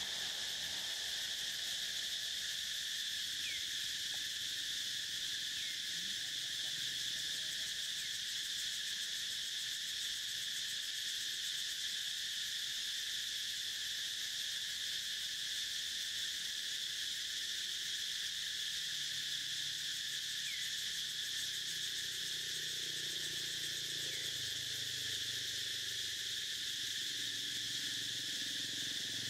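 Steady, unbroken high-pitched drone of an insect chorus, with a few faint short chirps over it.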